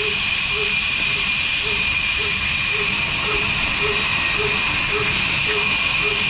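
Large vertical band saw cutting a log: a steady hissing rasp, with a faint regular beat about twice a second underneath.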